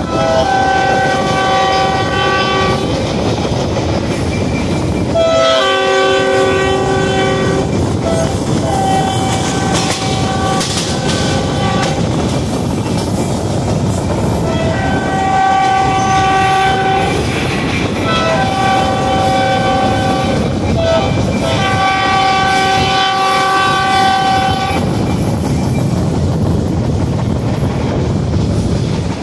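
Locomotive air horn sounding the grade-crossing signal, long, long, short, long, twice in a row, over the steady rumble and clack of the moving train's wheels.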